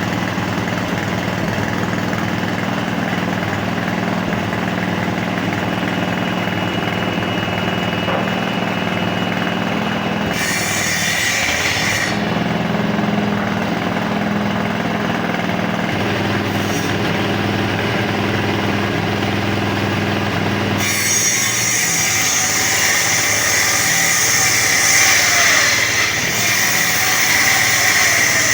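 A woodworking machine running steadily with a low hum, its sound changing several times as brighter, hissing cutting noise comes and goes, about ten seconds in, again about two seconds later, and from about two-thirds of the way through.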